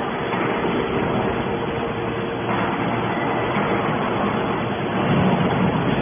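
TCM hydraulic scrap metal baler running: a steady mechanical hum with a faint whine, growing a little louder about two and a half seconds in.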